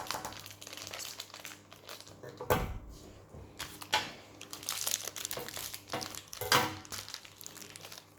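Plastic toy packaging crinkling and crackling as it is handled and opened, with a duller knock about two and a half seconds in.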